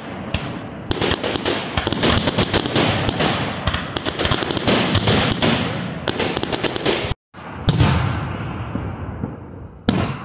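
Aerial fireworks bursting: a dense run of rapid crackles and bangs that breaks off abruptly about seven seconds in, followed by a deep boom and another sharp bang near the end.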